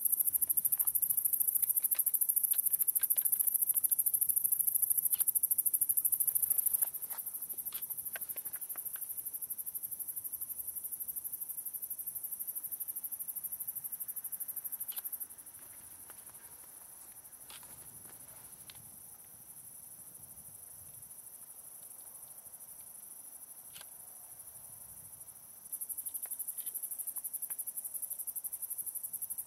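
Summer-night chorus of crickets: a dense, high, pulsing trill. It drops in loudness about seven seconds in, drops again about halfway through, and comes back up near the end.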